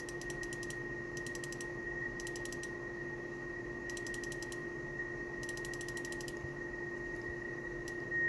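Receiver audio from the ANAN-8000 SDR: steady hiss with two faint steady tones, while the test carrier is being nulled with the diversity phasing control. Over it come five short runs of rapid clicking from a computer mouse wheel as the phase is fine-tuned.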